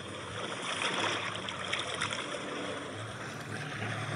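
Steady rushing of water around a moving boat, over a low engine hum.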